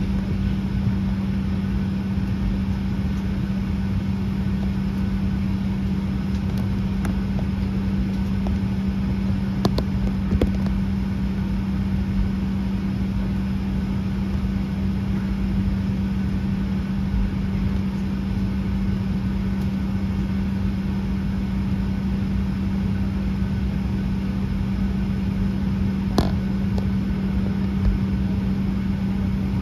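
Steady cabin drone inside a Boeing 737-800 being pushed back, before its right engine is started: a constant low hum over a rush of air, with a few small clicks.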